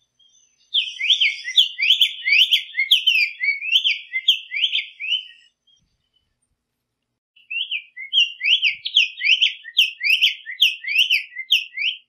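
Black-faced tanager (sanhaço-de-coleira) singing: two long runs of quick, rising whistled notes, several a second, with a short pause between them.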